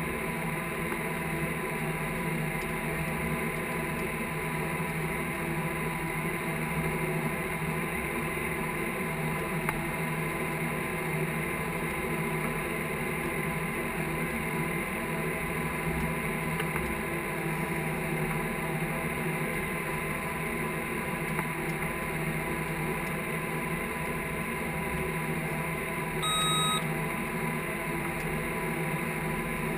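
Case IH tractor's diesel engine running steadily under load while pulling a cultivator, heard from inside the cab, with a steady high whine over the drone. Near the end, one short electronic beep.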